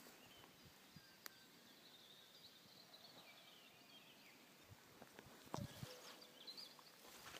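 Faint songbirds singing, thin high chirps and warbles, with a sharp click about a second in and a soft thump a little past halfway.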